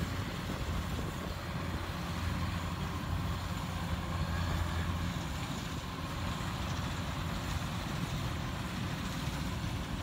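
Kubota DC-70 combine harvester's diesel engine and threshing machinery running steadily under load as it cuts rice, a steady low drone.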